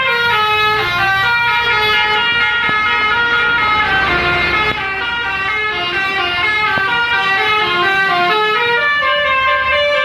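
An Indonesian 'telolet' multi-tone air horn on a Midas Nusantara bus plays a long, snaking melody, its notes stepping quickly up and down without a break. A low rumble sits underneath.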